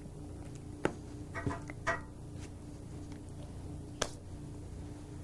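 Quiet room tone with a steady low electrical hum and a few scattered clicks, sharpest about a second in and again near four seconds in.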